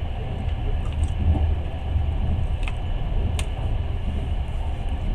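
Passenger train running along the track, heard from inside the carriage: a steady low rumble, with two sharp clicks about two and a half and three and a half seconds in.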